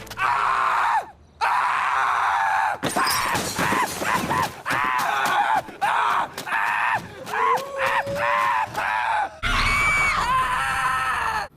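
A cartoon character's voice screaming, groaning and yelling in a string of short wordless outbursts, cut together from separate clips with abrupt changes between them.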